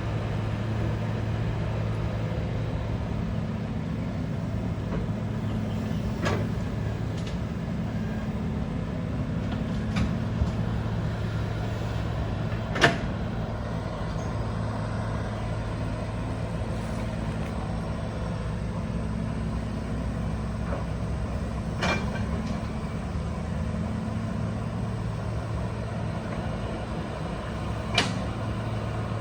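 Engine of a heavy earthmoving machine running steadily at a low hum while levelling ground for a road. Five sharp knocks are heard over it, the loudest about halfway through.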